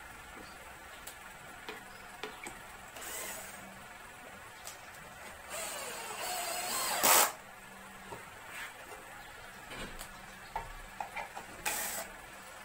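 Cordless drill driving screws into a plywood cabinet box in short runs: a brief one about three seconds in, a longer one in the middle that ends loudest, and another near the end, with light knocks of the wooden panels in between.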